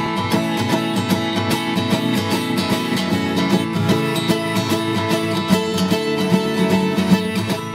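Background music: upbeat acoustic guitar picking in a bluegrass-country style.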